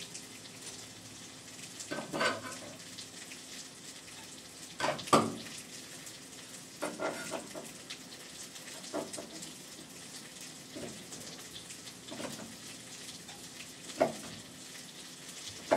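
Steady sizzling of food frying in a pan, with a chef's knife chopping greens on a cutting board: about seven separate, irregularly spaced knocks, the loudest about five seconds in and near the end.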